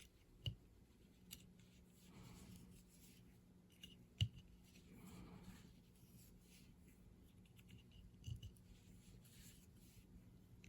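Quiet workbench handling of the old Craftsman hand drill's parts during cleaning: a few light clicks and taps, the sharpest about four seconds in, with soft rubbing between them.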